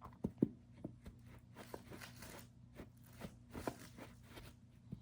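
Scattered light taps and rustles of a cat moving about and batting at its toys, over a faint steady low hum.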